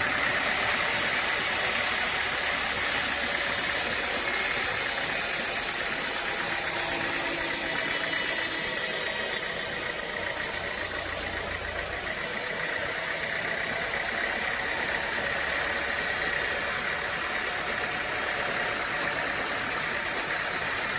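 An engine running steadily, with a hissing high edge that eases off about ten to twelve seconds in.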